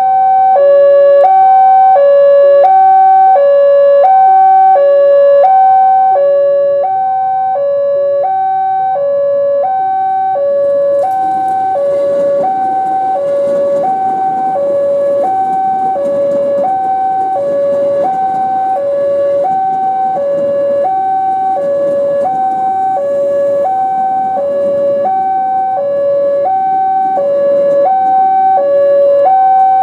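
Railway level-crossing warning alarm sounding its steady alternating two-tone high-low signal, with a lower note sounding in its own slower pattern. From about eleven seconds in, an electric commuter train runs past close by with a rumble of wheels on rails under the alarm.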